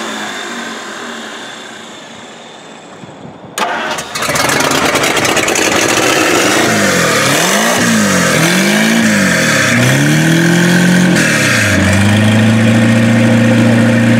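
Packard straight-eight engine catching suddenly about three and a half seconds in, starting on its freshly installed distributor. It is revved up and down several times, then settles into a steady idle near the end.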